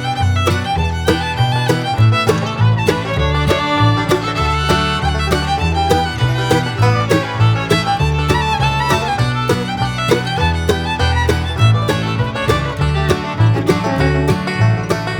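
Background music in a bluegrass style with a steady beat: a fiddle melody over a walking bass and plucked strings.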